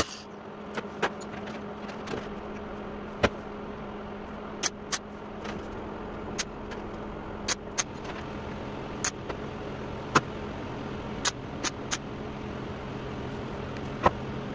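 MIG welder tack welding a sheet-metal panel: about a dozen short, sharp zaps scattered over a steady hum, the tacks spaced an inch or so apart to hold the panel in alignment.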